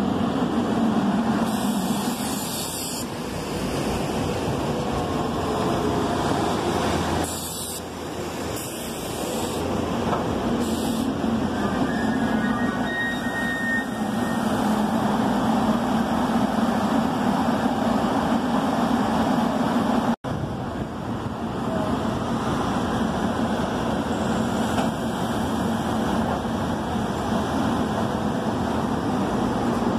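SEPTA Silverliner IV electric multiple-unit train rolling slowly alongside the platform as it pulls in, with a steady rumble and hum from its wheels and traction equipment. Several short hisses come in the first ten seconds, and a faint high squeal comes about twelve seconds in.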